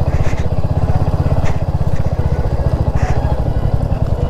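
Royal Enfield Hunter 350's single-cylinder engine running steadily with a rapid even thump while the bike rides a rough dirt track. About three short knocks are heard as it goes over the ruts.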